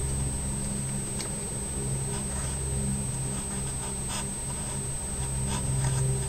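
A steady low mechanical hum with a constant thin high-pitched whine above it, and a few faint clicks and rubs.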